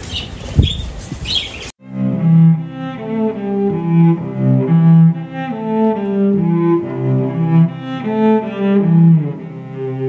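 Budgerigars chirping for under two seconds, with one sharp click, then an abrupt cut to background music: a bowed-string melody of low notes changing about twice a second.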